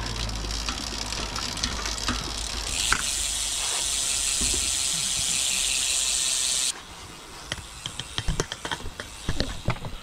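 Bicycle rear freewheel hub ratchet clicking as the wheel turns. A steady high hiss cuts off suddenly about two-thirds of the way through, and scattered separate clicks follow.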